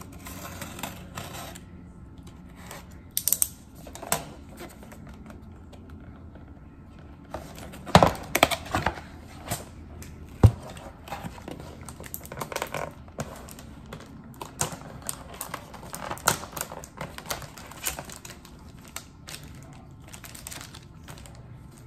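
Cardboard keyboard box being handled and opened: irregular clicks, taps and rustles of the flaps and packaging, with a couple of sharper knocks around 8 and 10 seconds in, and the keyboard lifted out of its tray near the end.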